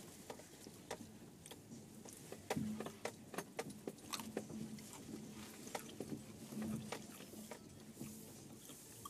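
Inside a Subaru Forester moving slowly over rough, snowy field ground: a faint low engine hum under many irregular sharp clicks and small knocks.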